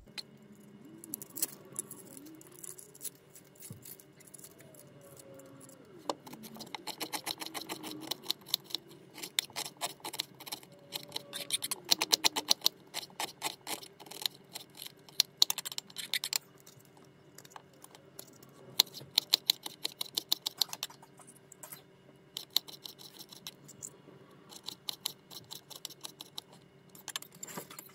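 Chef's knife chopping onion and small sweet peppers on a wooden cutting board: runs of quick, rapid knife taps with short pauses between, starting after a few quieter seconds.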